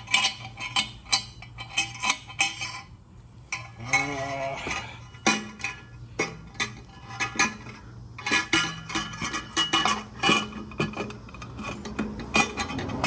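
Hand tools and exhaust hardware clinking and clicking against metal, an irregular run of sharp taps as nuts are fitted to the quad's exhaust header studs.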